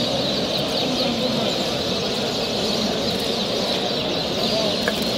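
Many caged canaries and finches chirping and calling at once, a dense, continuous chorus of quick high chirps over a low background hum.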